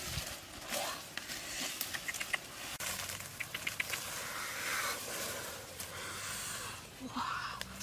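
Grass and leaves rustling and crackling with many small clicks as a person pushes through tall grass and crawls on the ground, with a few short high chirps.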